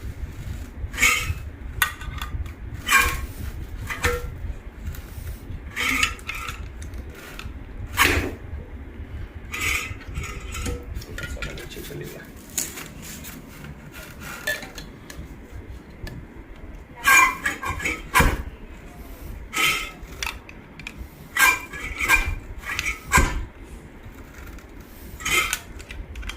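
Hand-operated stainless steel tube crimping machine being worked to crimp a metal tube shut: irregular metallic clanks and clinks, some in quick clusters, as the handle is pressed and the steel parts knock together. The machine is not fixed to a table and shifts as it is worked.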